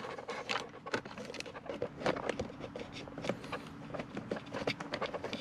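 Irregular small clicks, taps and rattles of fingers working a plastic wiring connector loose under a Jaguar XK8's centre console.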